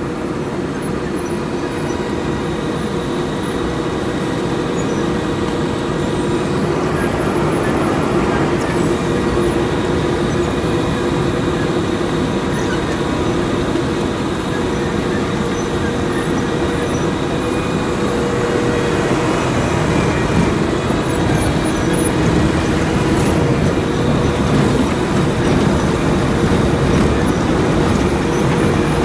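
Wirtgen W 210i cold milling machine running under load as it mills asphalt: a loud, steady drone of the diesel power unit and the cutting drum, with an even hum through it.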